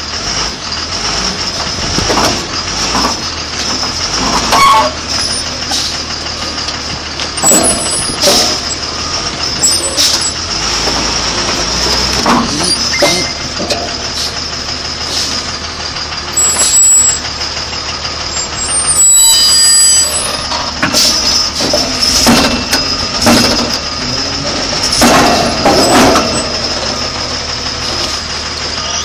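Heavy diesel machinery running steadily, with a steady high whine, while heavy metal is moved about in loud, irregular clanks and bangs every second or two.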